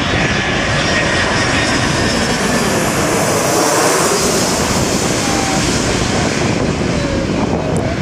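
Boeing 737-300 with two CFM56-3 turbofan engines on landing approach passing low overhead: the engine noise swells to a peak about halfway through and eases as it moves away, with a thin high whine as it approaches.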